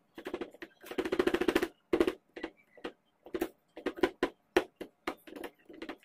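Fingers rapidly tapping a plastic tub filled with a white casting mix, in quick flurries of taps and then shorter groups and single taps.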